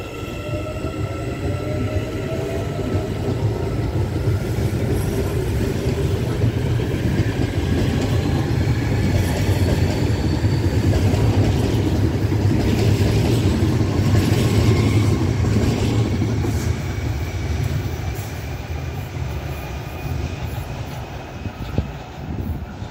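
CPTM electric multiple-unit passenger train passing close by as it pulls away: traction motors whine in rising tones over a heavy rumble of wheels on the rails. It builds to its loudest about halfway through, then eases off.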